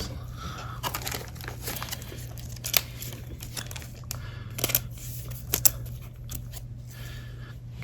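A trading card being slid into a plastic card sleeve: light crinkling of the plastic with a few sharp clicks and taps as it is handled.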